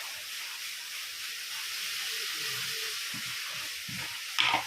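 Onion and cabbage sizzling as they fry in ghee in a pan, a steady hiss. A brief louder noise comes near the end.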